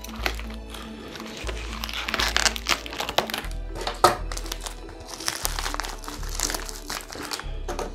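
Silver bubble-foil insulated shipping bags crinkling and crackling as they are handled, over background music with a steady bass line.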